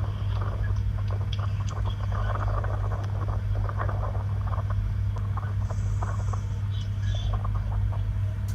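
A steady low hum with faint, scattered clicks and rustling over it.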